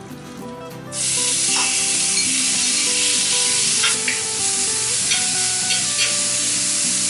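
Marinated beef strips hit hot oil in a cast-iron skillet about a second in, and a loud, steady sizzle follows as they are stir-fried with metal tongs, the tongs clicking against the pan now and then.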